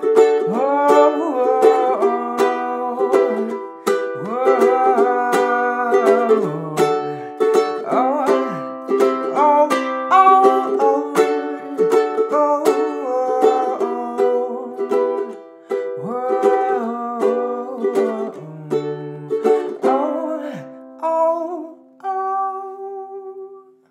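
Ukulele strumming chords in a steady rhythm, thinning out near the end to a last chord left to ring and fade.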